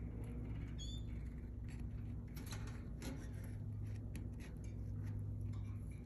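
A single short, high canary chirp about a second in, with scattered faint ticks and rustles, over a steady low hum.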